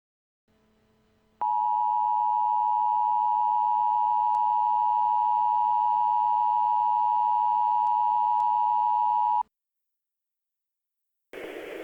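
Emergency Alert System two-tone attention signal (853 and 960 Hz sounded together), a steady, unwavering tone for about eight seconds that cuts off abruptly. After a short gap, a steady hiss of broadcast static begins near the end.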